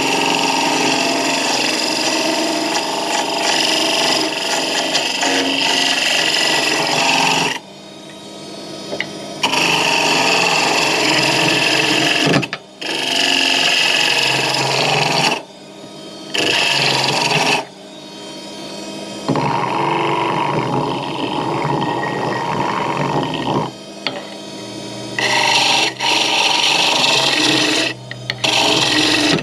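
Wood lathe spinning a small workpiece while a turning tool cuts it in repeated passes of a few seconds each. The cutting noise drops away briefly between passes.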